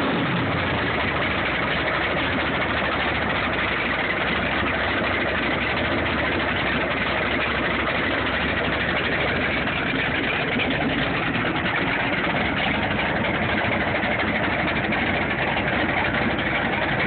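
Freshly rebuilt 454 big-block Chevrolet jet boat engine running steadily on a test stand during its first run after the rebuild.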